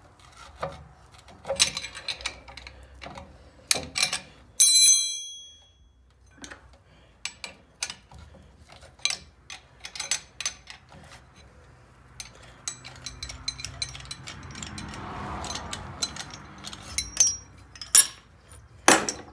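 Ratchet clicking and clinking metal as a screw-type brake caliper piston compressor is wound in, pushing the pistons of a rear disc brake caliper back into their bores. Irregular clicks throughout, with one ringing metallic clink about five seconds in.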